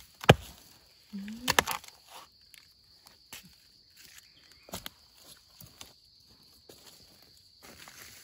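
Knife chopping into a fresh bamboo shoot: a sharp chop about a third of a second in, a quick cluster of chops around a second and a half, and another near five seconds, followed by light rustling steps in dry leaf litter. A steady high insect drone runs underneath.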